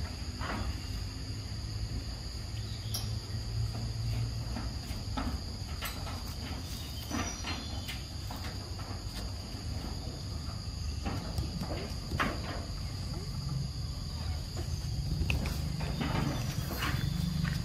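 Insects droning steadily in a high, unbroken note, with scattered short clicks and rustles over it.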